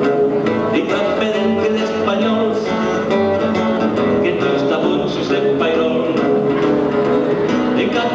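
Live acoustic band playing an uptempo rock-and-roll song: strummed acoustic guitar over an upright double bass, with a man singing into the microphone.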